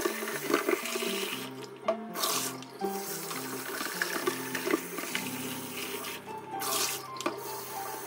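Kitchen tap water running and splashing into a plastic espresso-machine water tank as it is rinsed, with two louder surges of splashing, a couple of seconds in and again near the end. Background music with a simple melody plays throughout.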